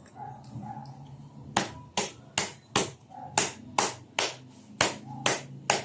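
About ten sharp wooden knocks, a little over two a second, starting about a second and a half in. A palochina pine board is being struck down onto the tight-fitting tenon of a wooden post to seat the joint flush.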